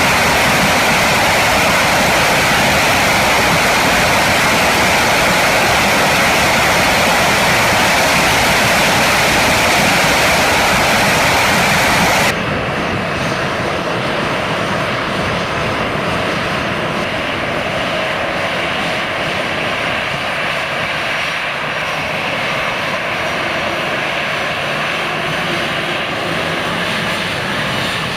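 Aircraft engines running with a loud, steady rushing noise; about twelve seconds in it cuts off abruptly to a quieter, thinner engine noise.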